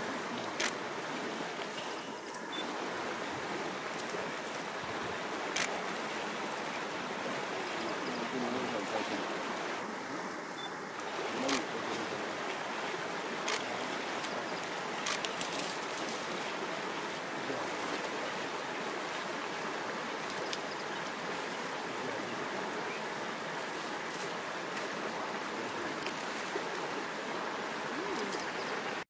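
Steady rushing of a shallow river, with a few sharp clicks scattered through it.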